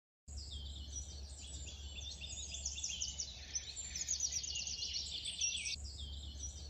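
Birds singing, several overlapping songs of quick high chirps and trills, over a faint steady low hum.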